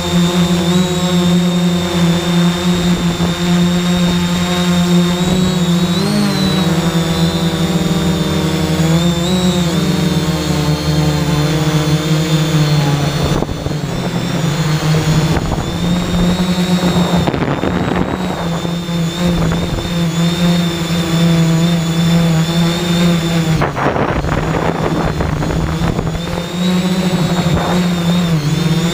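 A 3DR X8 coaxial octocopter's electric motors and propellers buzzing steadily in flight, heard from the aircraft's own on-board camera. The pitch wavers up and down now and then as it manoeuvres.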